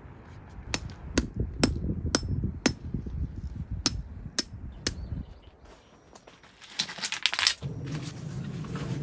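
A series of sharp clicking taps, about two a second, then a short hissing burst and a steady low hum near the end.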